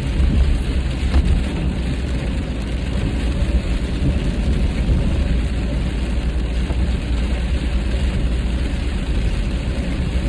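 Steady road and tyre noise inside a car's cabin at highway speed on a wet road, with rain striking the windshield.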